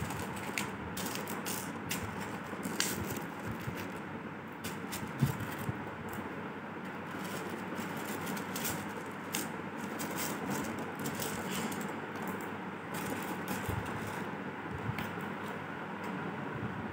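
Small white gravel and pebbles clicking and rattling as hands pick through them on a plate and drop them into aluminium foil trays, in scattered irregular clicks over a steady background hiss.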